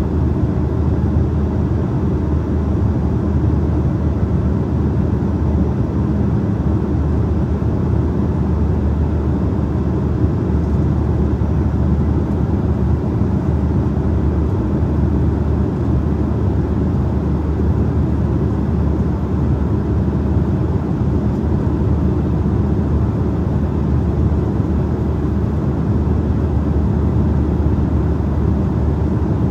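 Steady cabin drone inside an Embraer E175 jet in flight: the hum of its two GE CF34 turbofans and rushing airflow, deep and even, with a faint steady whine above it.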